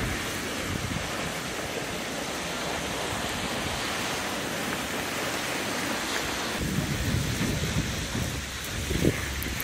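Wind blowing over the microphone: a steady hiss with low rumbling buffets that grow stronger about seven seconds in.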